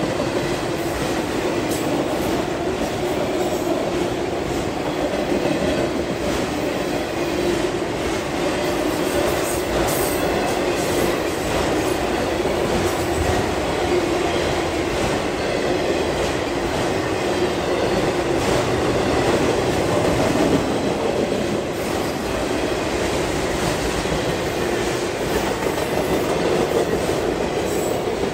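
Freight train of autorack cars rolling steadily past: a continuous rumble and rattle of steel wheels on the rails, with scattered clicks.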